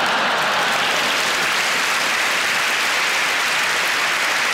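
A large theatre audience applauding steadily.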